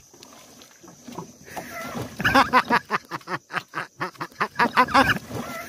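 A person's voice in a quick run of short, pitched pulses, about four a second, starting about one and a half seconds in and stopping just after five seconds.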